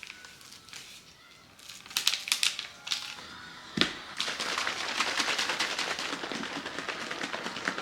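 A few clicks and a sharp snap, like a lid being closed, then protein coffee and milk being shaken hard in a closed shaker cup, a fast steady rattle for the last few seconds.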